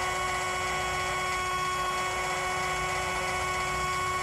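Huina 1572 RC crane's boom winch, a small electric motor and gearbox, whining steadily as it slowly reels in cable to raise the boom.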